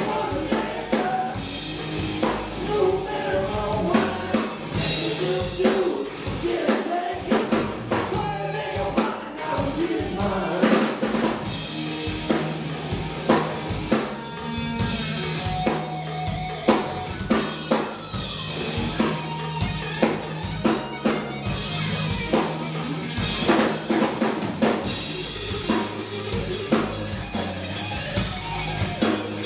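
Live rock trio playing an instrumental passage: electric guitar playing a melodic lead line over a bass guitar line and a drum kit keeping a steady beat.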